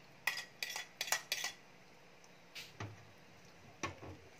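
Metal spoon scraping and clinking against ceramic plates as sardine topping is spooned out: a quick run of clinks in the first second and a half, then a few scattered ones.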